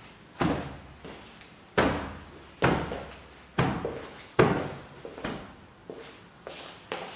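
Folded cotton backing fabric flipped over and dropped onto the table fold by fold: a series of about eight thumps, roughly one a second.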